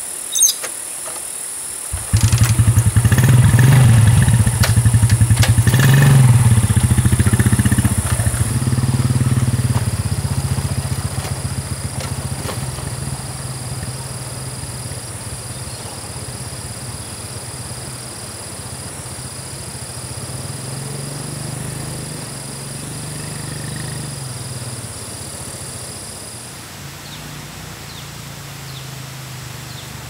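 Small motorcycle engine starting about two seconds in and running, loudest at first, then fading slowly as it moves away.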